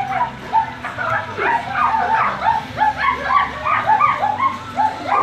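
Several girls' voices imitating a dog, barking short, high yaps over and over. The barks overlap, a few a second.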